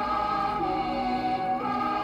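Slow background music of long held notes that shift pitch slowly.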